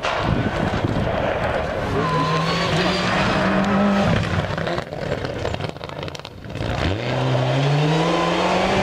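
Rally car engine at full throttle on a gravel stage, its note rising as it accelerates, dropping away around the middle, then climbing again near the end, over the hiss of gravel under the tyres.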